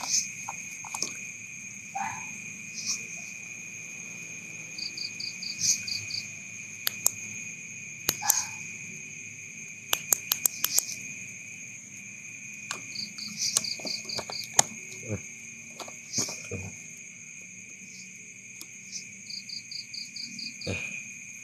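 Night insects such as crickets trilling steadily. A higher chirp of five or six rapid pulses repeats every several seconds, with scattered sharp clicks over the top.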